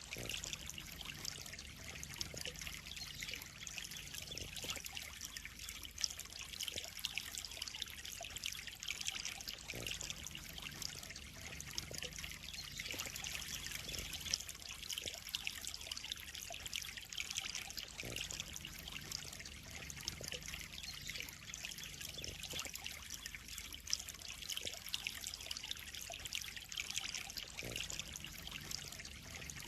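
Water trickling steadily into a koi pond.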